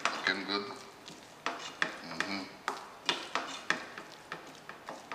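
Wooden spoon stirring curried pigeon peas in a stainless steel pan, scraping through the thick curry with irregular clicks and knocks of the spoon against the pan.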